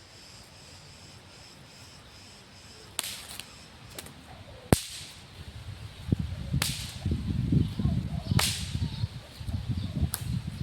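Whip cracked repeatedly behind the back: about five sharp cracks a second or two apart, the loudest about five seconds in, with a few fainter snaps between the first ones. A low rumble runs underneath from about six seconds on.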